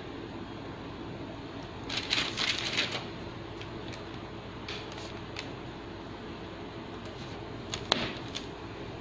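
Kitchen handling sounds as a sheet of set homemade agar-agar cheese is cut: about a second of rustling and crinkling, then a few light clicks and one sharp tap near the end, over a steady low hum.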